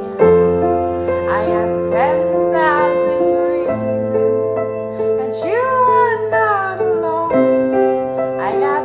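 Music: held keyboard chords that change about every three and a half seconds, with a woman singing over them.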